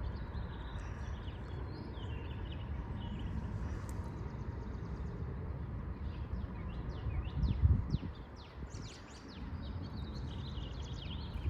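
Light wind rumbling on the microphone, with a stronger puff about seven and a half seconds in. Small birds chirp repeatedly over it, with a run of quick chirps near the middle.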